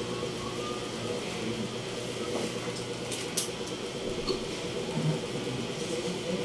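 Steady electric hum in a small room, with one sharp click a little over three seconds in.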